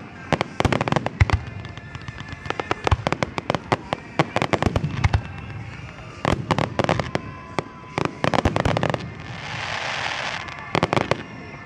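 Aerial fireworks display going off: clusters of rapid crackling pops and sharp bangs. About three-quarters of the way through there is a rushing hiss lasting over a second.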